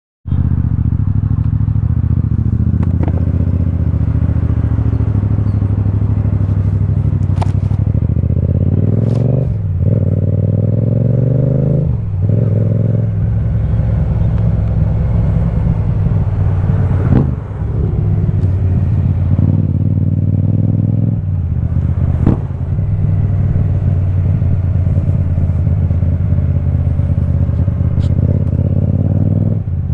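Yamaha XSR700's parallel-twin engine running through an Akrapovic carbon full-system exhaust while riding. The revs climb and drop sharply several times as the rider changes gear.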